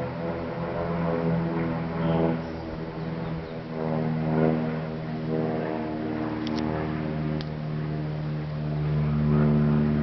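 A steady, low motor drone with a hum of many even overtones, shifting slightly in pitch. There are a few faint high chirps about two-thirds of the way through.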